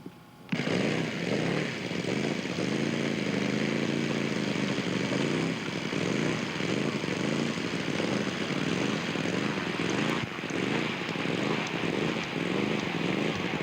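Radio-controlled scale model airplane's engine running, its pitch wavering up and down. It starts abruptly about half a second in.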